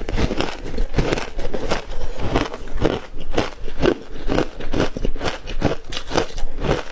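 Bow-shaped ice being bitten and chewed close to the microphone: a continuous run of crisp, irregular crunches, several a second.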